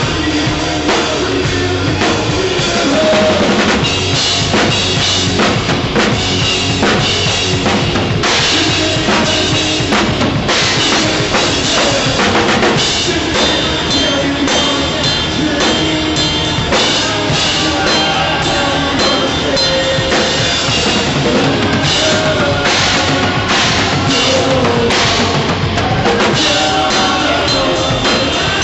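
Rock band playing with the drum kit loud and close: bass drum and snare hits driving a steady beat over sustained guitar-like tones.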